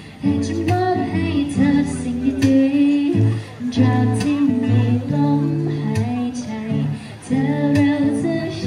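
A woman singing into a handheld microphone, amplified through a portable speaker over backing music with a steady beat.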